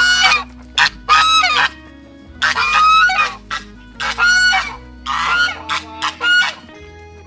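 Geese honking, a series of about seven loud calls roughly one a second, over faint background music.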